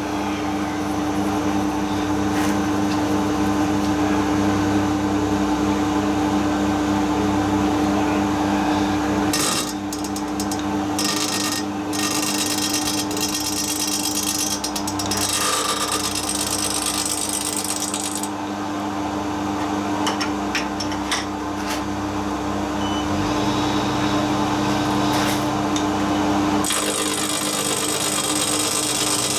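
Milling machine running and cutting steel: a steady motor hum under the noise of the cutter working the metal, which changes character about ten seconds in and again near the end.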